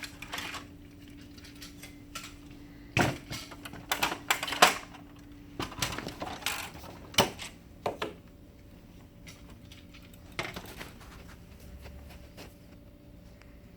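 Plastic and metal laser-printer parts being handled and unclipped: a run of sharp clicks and knocks from about three to eight seconds in, and one more about ten seconds in.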